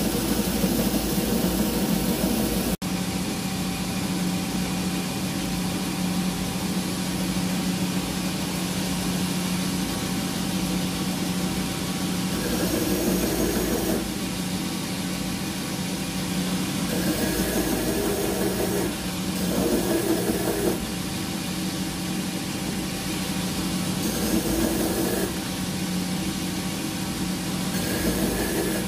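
Bench grinder motor running with a steady hum, and a titanium pocket clip pressed against the spinning wheel in several short passes of a second or two each, each pass adding a louder grinding hiss.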